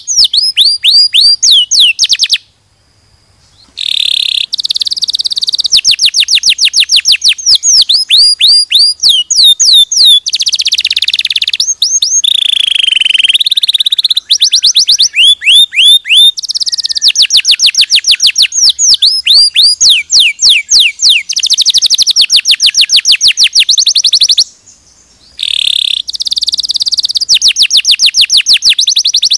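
Domestic canary singing a loud, continuous song of fast trills and rolls made of rapidly repeated, falling whistled notes. It breaks off twice briefly, once a few seconds in and once near the end.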